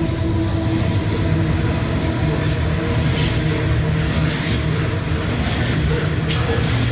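Loaded coal hopper wagons of a long freight train rolling past: a steady low rumble of steel wheels on rail, with a few sharp clicks and knocks. The hum of the locomotive that has just passed dies away about a second in.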